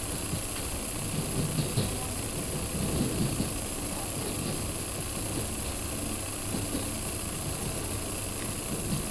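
Steady running noise inside a KiHa 40 diesel railcar under way: a low diesel engine drone mixed with the rolling noise of the train.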